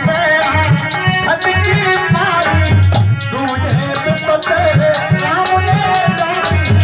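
Indian folk music with a hand-drum beat like tabla or dholak and fast jingling rattle percussion under a wavering melody line.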